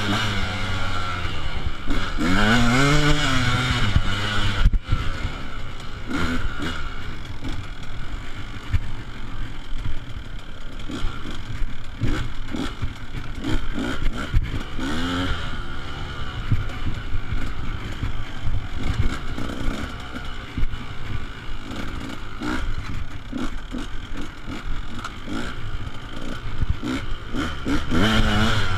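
Dirt bike engine heard close up from the bike, revving up and easing off again and again as the throttle is worked around the track, its pitch rising and falling. Knocks and clatter from the bike running over rough ground throughout.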